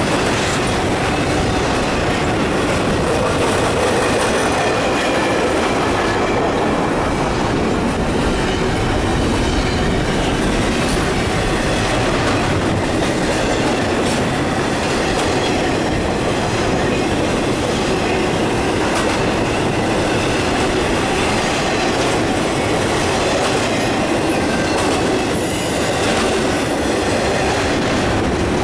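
Steel wheels of a freight train's intermodal well cars rolling past on the rails, a steady loud rumble and rattle with no let-up.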